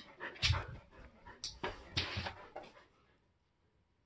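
Siberian huskies barking at passers-by outside, a quick string of short loud barks that dies away about three seconds in.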